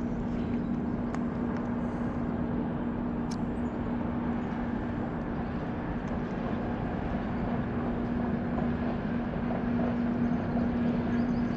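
Steady rushing of a flooding river, an even wash of water noise with a constant low hum beneath it.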